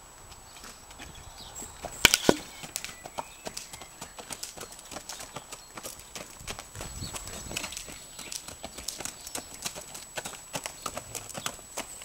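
Hooves of a walking foal and a man's shoes stepping on loose gravel: an uneven run of steps, with two sharp louder knocks about two seconds in.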